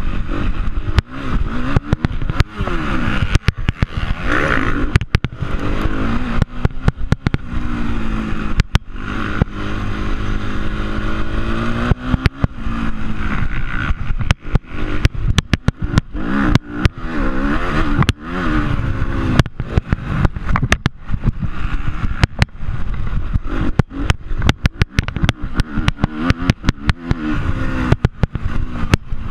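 Motocross dirt bike engine revving hard, its pitch climbing and falling over and over as the rider works the throttle and shifts through the gears around the track. A heavy wind rumble sits on the microphone underneath.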